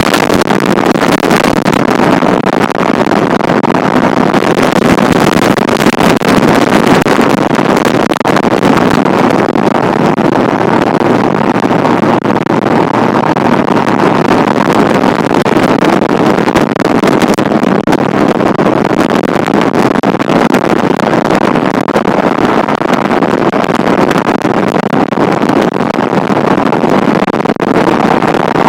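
Strong wind on the microphone: a loud, steady rushing noise that fills the whole stretch without let-up.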